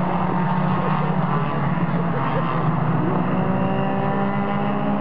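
Mini stock race cars' engines running together as the pack laps the oval, a steady mixed engine drone whose pitches shift slightly as the cars come around.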